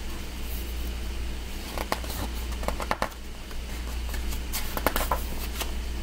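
Pages of a hardcover picture book being opened and turned by hand: a few short paper rustles and taps, over a steady low hum.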